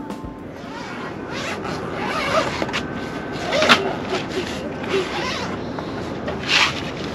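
Irregular rustling and short raspy scrapes of things being handled, with two louder brief rasps, one about midway and one near the end.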